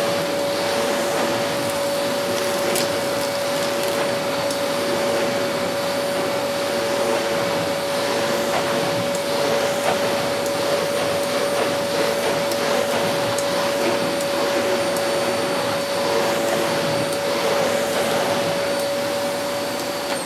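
Goblin GCV303B bagless cylinder vacuum cleaner running steadily: a constant whine over the rush of air, as its carpet and floor nozzle is pushed back and forth over carpet, sucking up dirt and dog hair.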